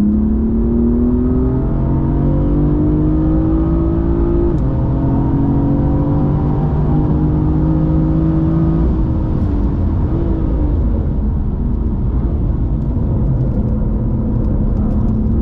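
BMW M4's twin-turbo straight-six engine pulling with its pitch climbing for the first few seconds, then an upshift about four seconds in. After that it runs at a steady engine speed, easing off to a lower steady pitch a little past halfway, with road noise underneath.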